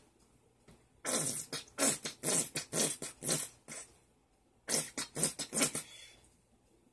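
Plastic squeeze bottle of Heinz tomato ketchup sputtering as it is squeezed, air and ketchup spurting from the nozzle in short splutters. It comes in two runs: about eight spurts, a short pause, then about five more.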